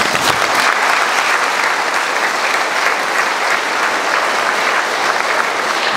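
Audience applauding steadily, a dense, even patter of many hands clapping at the end of a speech.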